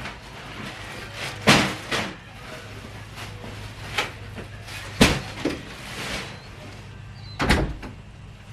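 About six sharp knocks and bumps, like doors or cupboards being opened and shut, over a steady low hum.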